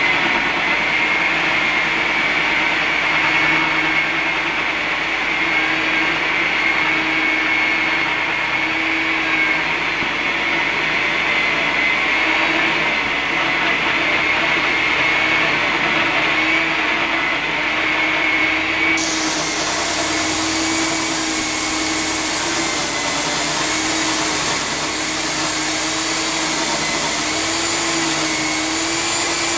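Electric diamond core drill on a rig stand running steadily under load as its core barrel cuts into concrete. The motor whines with a slightly wavering pitch, and a brighter hiss joins abruptly about two-thirds of the way in.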